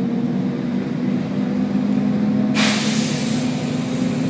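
Volvo B10BLE bus's diesel engine running steadily, then about two and a half seconds in a sudden loud hiss of compressed air from the bus's air system, strongest for about a second and then going on more softly.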